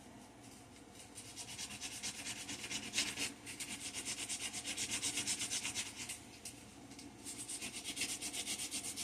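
Sandpaper rubbed by hand over a wooden tabletop in quick back-and-forth strokes, about five a second, with a short pause about six seconds in.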